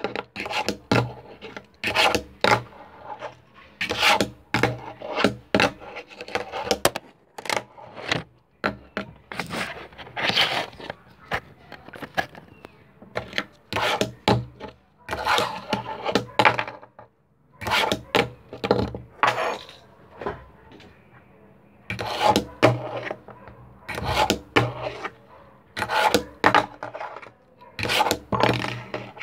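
Wooden fingerboard being flicked through tricks on a hard surface: irregular sharp clacks as the deck pops and lands, mixed with short scrapes and rolls of its small wheels, with a couple of brief pauses.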